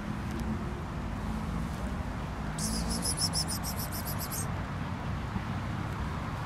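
A bird's high, rapid trill for about two seconds in the middle, over a steady low outdoor rumble.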